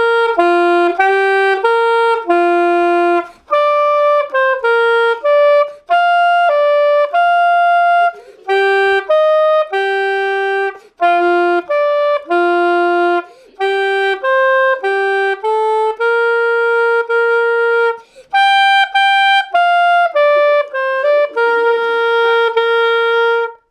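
Curved soprano saxophone playing a solo melody, one note at a time in short phrases with no accompaniment. It holds two long notes near the end.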